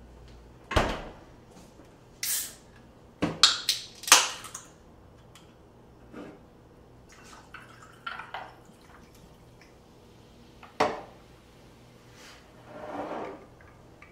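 Dishes and kitchenware being handled: scattered sharp clinks and knocks, a quick cluster of them about three to four seconds in, and a short swishing noise near the end.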